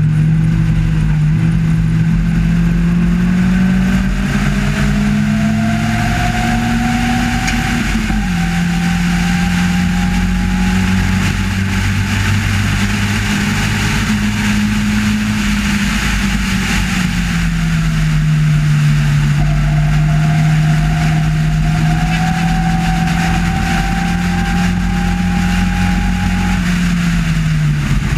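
Race car engine heard from the open cockpit under way, its note climbing and then dropping sharply about eight seconds in at a gear change. The pitch then holds, eases down, and falls again near the end, over steady wind and road noise.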